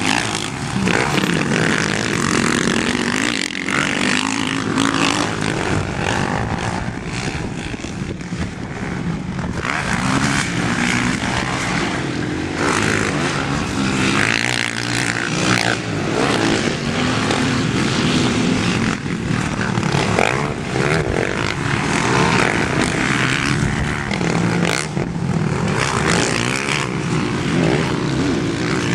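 Dirt bike engine running under way, its revs rising and falling as it is ridden.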